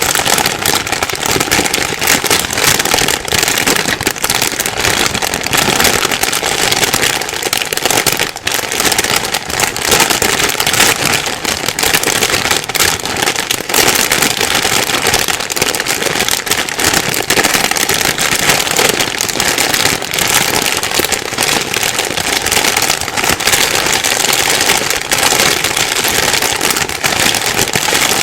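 Plastic bag rustling and crinkling continuously, a dense crackle of small crinkles with no pauses.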